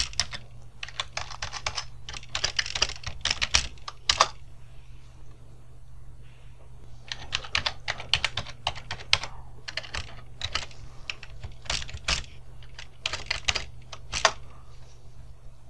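Computer keyboard typing as a password is entered and re-entered: a quick run of keystrokes for a few seconds, a pause of about three seconds, then another long run. A low steady hum runs underneath.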